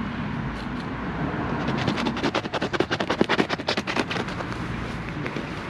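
Utility knife cutting through roofing felt: a rapid crackling rasp of about ten clicks a second, lasting a couple of seconds in the middle, over a steady low background hum.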